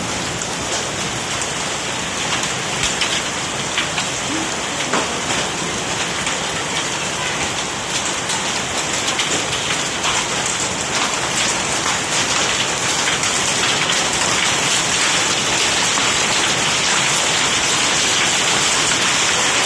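Hailstones and heavy rain pelting down: a dense steady hiss dotted with many sharp little impacts, growing slightly louder in the second half.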